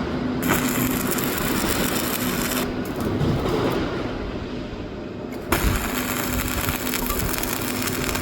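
Electric arc welding on a JCB excavator bucket: the steady crackle and sizzle of the arc, with a faint steady hum under it. The arc stops briefly near the start and again for about three seconds in the middle, then strikes up again.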